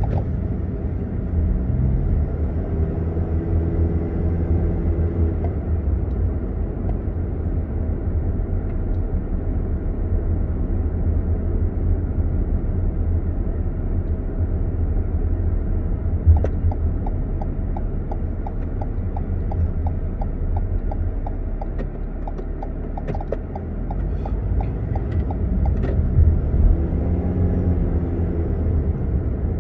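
Steady low rumble of a car's engine and tyres heard from inside the cabin while driving. Twice the engine note rises as the car pulls away and speeds up. A light, regular ticking comes at the start and again midway.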